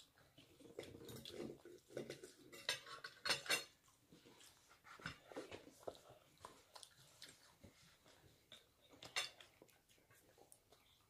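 Knives and forks scraping and clinking on plates while cutting steak, in scattered faint clicks. A few sharper clinks come about three seconds in and another about nine seconds in.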